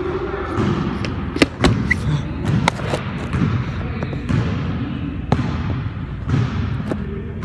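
A few sharp knocks and thuds at irregular intervals, the loudest about a second and a half in, over a steady background noise.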